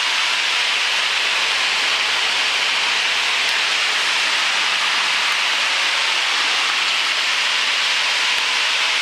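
Steady cabin noise of a piston-engine light airplane in level flight, engine and airflow blending into an even hiss, with the engine throttled back to about 2,600 RPM.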